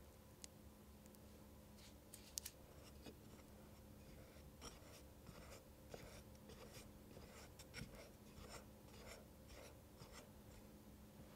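Tiny metal palette knife spreading and smoothing whipped cream on top of a miniature cake: faint soft scraping strokes, several a second, starting about four seconds in, after a few small clicks.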